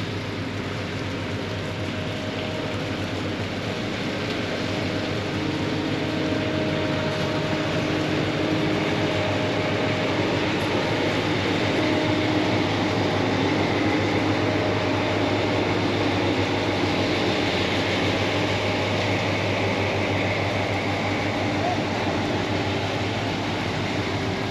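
Steady drone of a working river dredge's diesel machinery and pumps, mixed with the boat's own motors running. It swells to its loudest about halfway through as the dredge barge passes close alongside, then eases off slightly.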